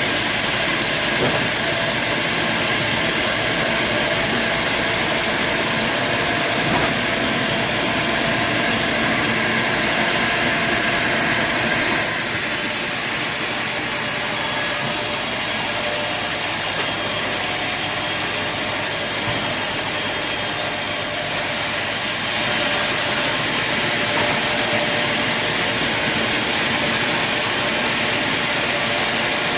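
Sawmill saw cutting through timber, a loud steady noise that changes character twice, about twelve seconds in and again some twenty seconds in.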